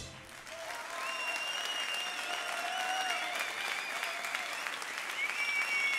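Applause from a crowd, a dense crackle of clapping, with a few long high cheers carried over it.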